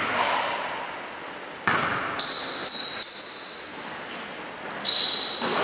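A basketball bouncing off-camera on a hardwood gym floor: a few sharp bounces, about 1.7, 2.2 and 5 seconds in, each echoing through the large hall. High-pitched squeaks run through the middle of the stretch.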